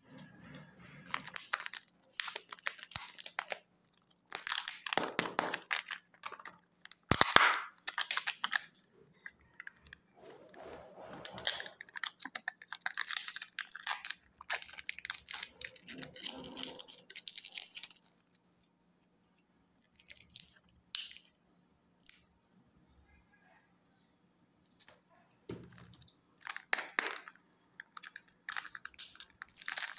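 Foil wrappers on Kinder Joy surprise eggs being torn and peeled off by hand, crinkling in irregular bursts with pauses in between. A single sharp snap about seven seconds in is the loudest sound, and a faint steady hum runs underneath.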